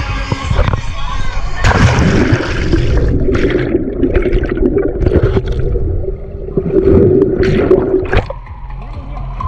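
Wave-pool water sloshing and splashing, loud. It starts about two seconds in and cuts off suddenly near the end.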